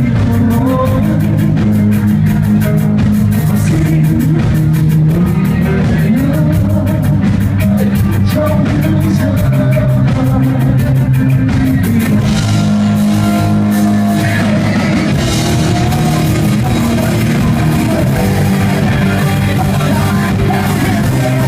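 Rock band playing live, with electric guitar and a drum kit.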